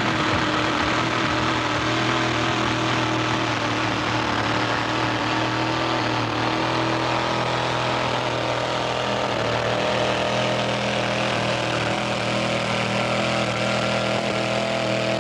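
Engine of a modified two-wheel-drive pulling pickup running flat out at steady high revs while it hauls a weight-transfer sled down the pulling track.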